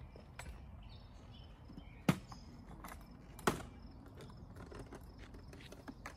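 Two sharp knocks about a second and a half apart as a small canister vacuum and its hose are set down on an asphalt driveway, with faint footsteps and handling ticks around them.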